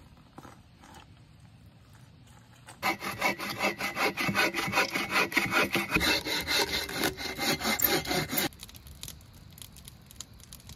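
Hand saw cutting through a weathered dead log with quick back-and-forth strokes, starting about three seconds in and stopping suddenly a couple of seconds before the end.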